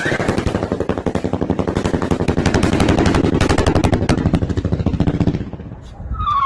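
Fireworks going off in a rapid string of bangs, about ten a second, for around five seconds before dying away. Near the end a whistling firework starts, a whistle falling slowly in pitch.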